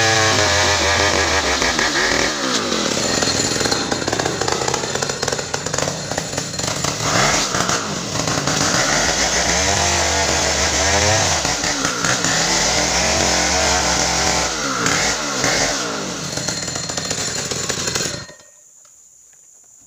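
Large two-stroke 070-type chainsaw running at high revs, its pitch repeatedly dropping and recovering as it bogs under load in a cut, then shutting off abruptly near the end.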